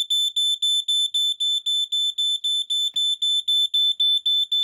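A 1993 Firex FX1218 smoke alarm sounding a rapid, high-pitched pulsing beep, about four beeps a second. It has been set off through its interconnect wire by a battery put across the neutral and interconnect leads.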